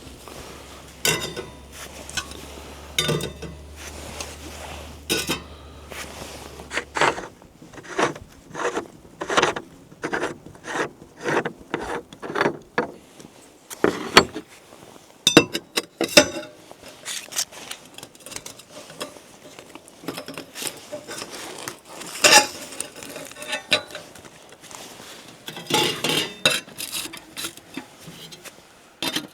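Irregular clinks, knocks and rattles of camp gear being handled, short clattering hits spaced unevenly throughout. A faint low hum underneath stops about seven seconds in.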